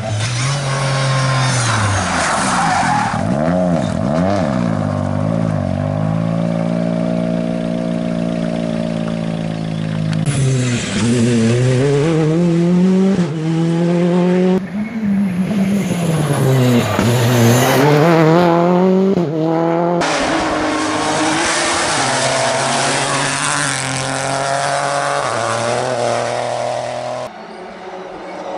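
Rally cars driven flat out on a tarmac stage, one a Citroën C3 rally car: engines revving hard, pitch climbing through each gear and dropping sharply on lifts and downshifts into corners. Several passes follow one another with abrupt cuts.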